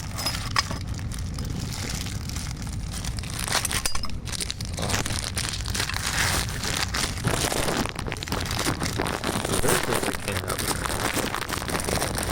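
Packaging crinkling and rustling as the multi-tool's parts are handled, with small clicks and knocks, busier in the second half.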